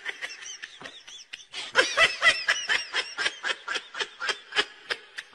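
A person laughing hard in a long run of short, rapid bursts, getting much louder about one and a half seconds in.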